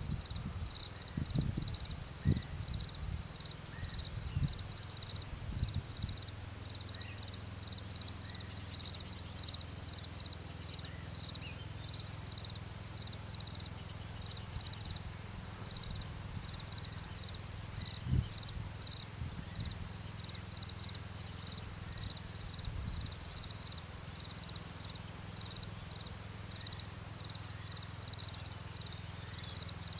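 Steady, rapidly pulsing high-pitched insect chorus, with a few low thumps in the first six seconds and again about eighteen seconds in.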